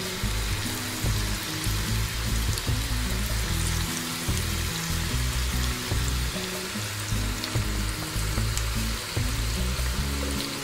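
Marinated chicken pieces deep-frying in hot oil: a steady sizzle with small scattered crackles, over background music with a stepping bass line.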